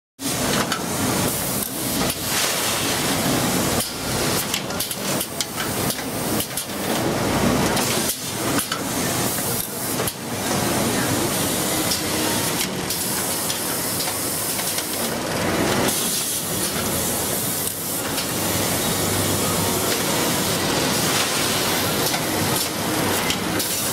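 Spiroflow Pacepacker automatic bagging line running. There is a steady air hiss under frequent metallic knocks and clatters, busier in the first half.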